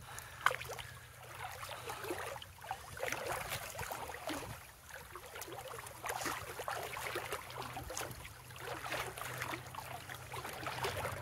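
Uneven splashing and sloshing of river water as a person wades across a fast-flowing, flooded river.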